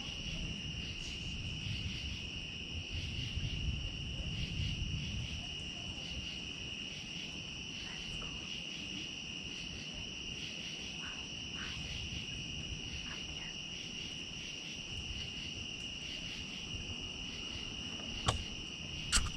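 A steady chorus of night insects, one unbroken high trill, over a low rumbling noise. A couple of sharp clicks come near the end.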